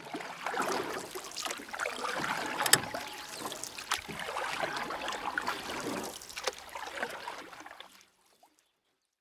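Water splashing and gurgling around a small rowboat, with scattered sharp knocks; it cuts off suddenly about eight seconds in.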